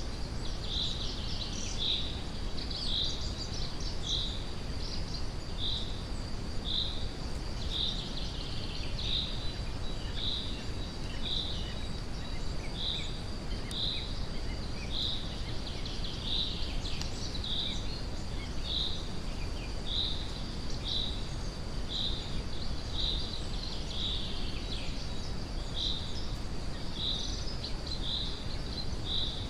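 Steady brown noise, deep and even, under forest ambience. A short high chirping call repeats about once a second over a faint continuous high buzz, with scattered other bird chirps above.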